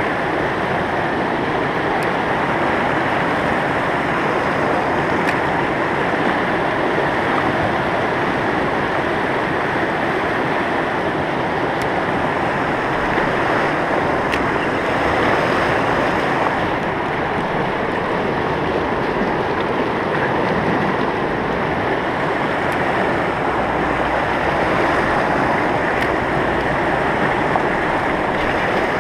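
Fast mountain river rapids rushing steadily over rocks, with a few faint clicks.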